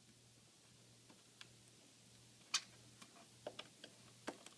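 Near silence with a low hum, broken by a few faint, scattered clicks of a tool picking at the laptop's plastic base and rubber foot, most of them in the second half.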